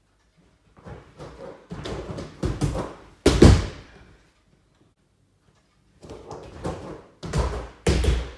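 Bare feet running and tumbling on an inflatable AirTrack mat: a run of thumps building to a loud landing thud a little over three seconds in, then another run of thumps with heavy landings near the end.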